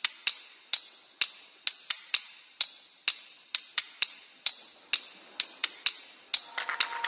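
Sharp, bright clicks about two a second, some coming in quick pairs, opening an electronic music mashup. Near the end a sustained synth chord comes in under faster clicking as the track starts.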